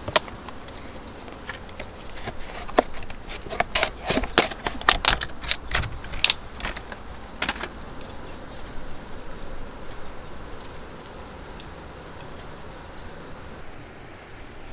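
A plastic salad clamshell being opened and handled: a quick run of sharp crackles and clicks for several seconds, then only faint handling sounds.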